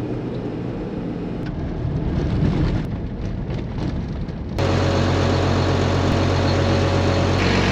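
Low rumble of a ute driving, heard from inside the cab. About four and a half seconds in it gives way suddenly to a self-propelled crop sprayer's diesel engine idling steadily with a faint whine, and a hiss grows louder near the end.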